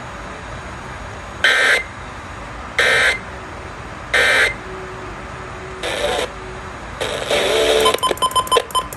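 Emergency Alert System end-of-message signal: three short bursts of warbling two-tone data tones, each about a third of a second and about a second and a half apart, marking the end of the broadcast flash flood warning. Over a steady hiss, followed near the end by a rapid run of choppy electronic beeps and noise.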